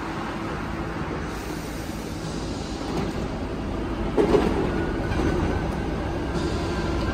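Alstom NS-74 rubber-tyred metro train rolling to a stop at the platform with a steady rumble, then a sudden louder clatter about four seconds in as its doors open.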